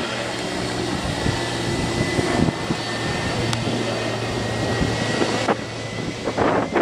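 Jet airliner engines running: a steady rush of noise with a high whine held on one pitch. The higher hiss drops away about five and a half seconds in.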